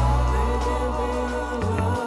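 Background music: soul-style track with a held bass note and a wavering sung or melodic line over light percussion.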